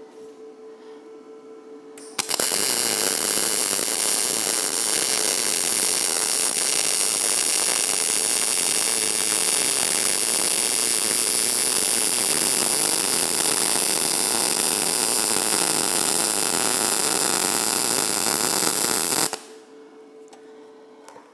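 MIG welding arc on steel from a Lincoln PowerMIG 210 MP feeding 0.025-inch wire at about 17 volts, a steady even arc noise that strikes abruptly about two seconds in and stops abruptly near the end. A faint steady hum comes before the arc strikes.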